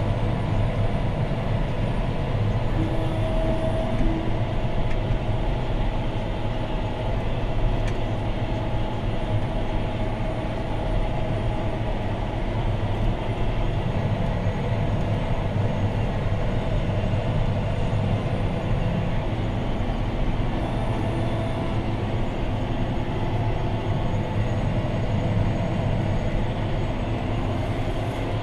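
John Deere 6215R tractor's six-cylinder diesel engine running steadily under load while pulling a mounted plough, heard from inside the cab as a deep, even drone.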